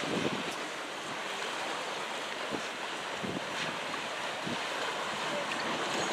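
Steady wind on the microphone over the rush of choppy water, with a few soft low thumps.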